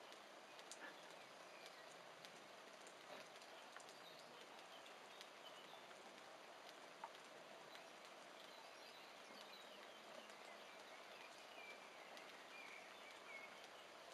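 Faint rural outdoor ambience: a steady hiss with a few soft scattered clicks.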